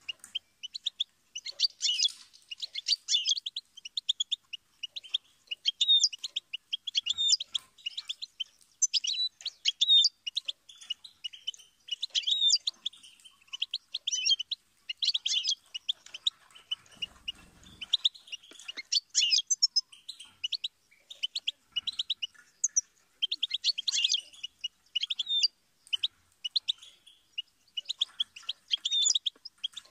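European goldfinch singing: rapid, twittering phrases of chirps and trills, coming in bursts with short pauses between them.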